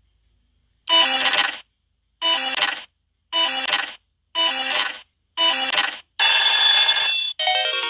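Electronic sound effects from the Treasure Jewels slot game: five short chiming jingles about a second apart during spinning, then from about six seconds in a longer win melody as a 1500-credit line win pays out.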